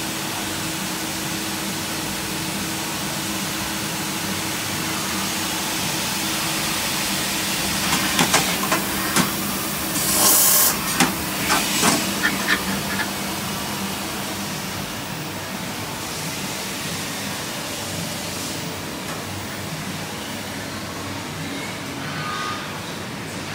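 Citizen L32 sliding-head CNC lathe running: a steady machine hum with hiss. About a third of the way in comes a cluster of sharp clicks and a short burst of loud hissing, then it settles back to the steady hum.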